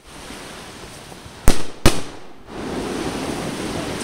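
Two sharp firework bangs about a third of a second apart, about a second and a half in, followed by a steady noise.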